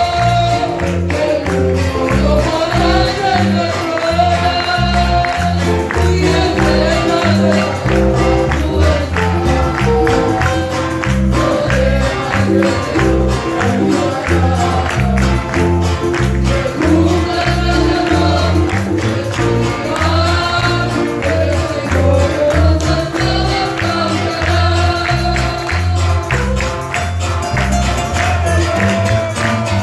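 Live Christian worship song: voices singing a melody over bass and hand percussion with a steady beat, and the congregation clapping along.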